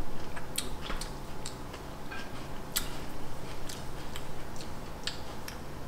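Eating at a table: a dozen or so scattered, sharp clicks, irregularly spaced, from forks tapping against plates while food is chewed.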